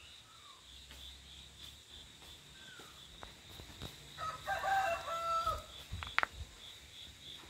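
A rooster crows once, about four seconds in, over a steady chirping of crickets. A sharp click follows about a second later.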